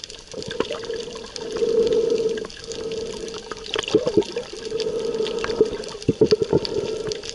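Muffled underwater sound picked up by a camera held below the surface: water rushing and crackling against the housing, with scattered clicks and a hum that swells and fades every second or two.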